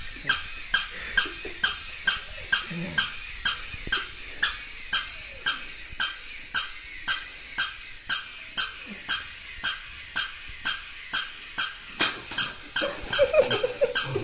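Battery-operated walking plush toy puppy running, its mechanism giving a steady train of squeaky clicks, a little under three a second.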